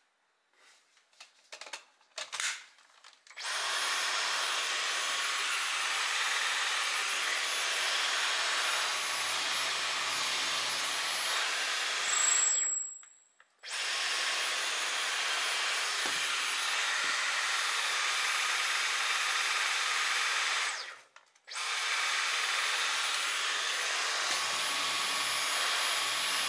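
Dyson cordless stick vacuum with its soft roller cleaner head running in three spells of several seconds each, a steady high-pitched whine and hiss that cuts off and restarts twice, after a few light handling clicks.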